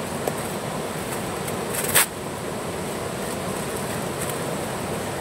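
River water rushing steadily, with a brief sharp noise about two seconds in.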